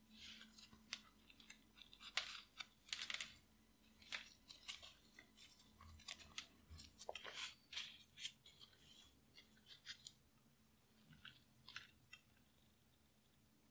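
Quiet, close crinkling and crackling of a pleated paper muffin liner being peeled off a crumb-topped muffin, in many short bursts. Near the end come a few sparser, softer crackles as the muffin is pulled apart.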